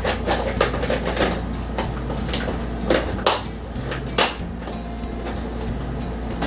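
Plastic lid and side clips of an electric lunch box being pressed into place: a series of short, sharp plastic clicks and knocks, the loudest two about three and four seconds in.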